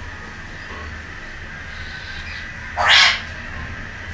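Indian ringneck parrot giving a single short, harsh screech about three seconds in.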